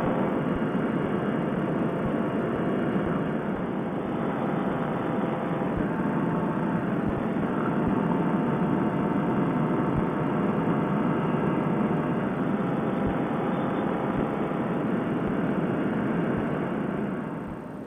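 Fresh Breeze Monster paramotor engine and propeller on a trike running steadily in flight, a dense, even rush. The level falls off just before the end.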